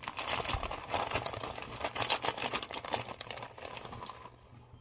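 Plastic bag of shredded cheddar cheese crinkling as it is handled and tipped, a rapid run of crackles that dies away near the end.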